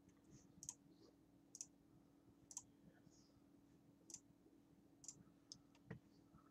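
Faint computer mouse clicks, about one a second, over a faint steady hum.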